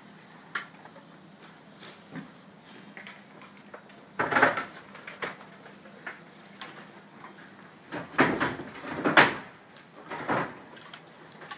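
A roped section of cut tree trunk scraping and knocking as it is rigged past the roof edge, giving a few short, rough scrapes: one about four seconds in, a cluster around eight to nine seconds, and another about ten seconds in.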